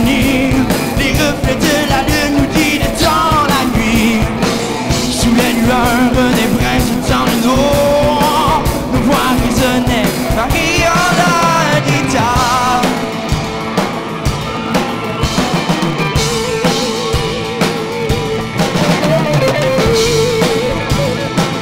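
Live rock band playing, with a drum kit under a melodic lead line that bends and wavers in pitch; the band drops a little quieter from about halfway through.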